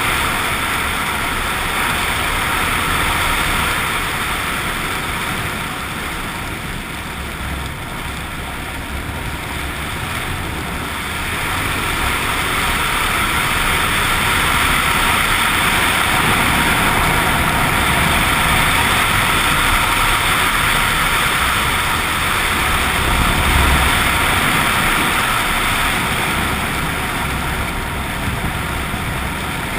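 Suzuki XF650 Freewind's single-cylinder engine running on the road, mixed with wind and road noise. It eases off for several seconds about a fifth of the way in, then picks up again.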